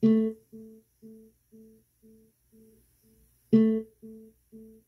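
JBL Flip 5 Bluetooth speaker sounding its guitar-like pluck tone in pairing mode. A loud note comes right at the start and another about three and a half seconds in, with softer repeats of the same note about twice a second.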